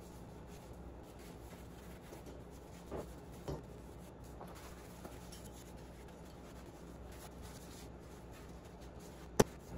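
Faint rubbing as a paper towel wipes the metal water pump cover, with two light handling knocks about three seconds in and a single sharp click near the end, over a low steady hum.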